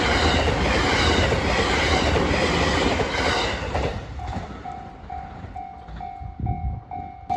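A JR train passing over a level crossing, its wheels clattering over the rail joints, then fading out about four seconds in. After that, the crossing's electronic warning bell rings a steady, repeated high ding, about two strikes a second.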